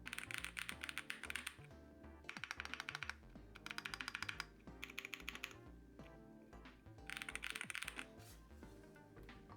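Rapid typing on a mechanical keyboard with Gateron Type R switches and a full set of keycaps, picked up by a camera's built-in microphone. The typing comes in four short flurries of quick key clicks, with background music underneath.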